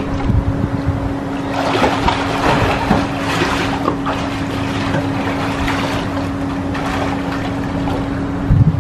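Water splashing and sloshing as a swimmer strokes through a swimming pool, loudest from about a second and a half to four seconds in, over wind rumbling on the microphone and a steady low hum.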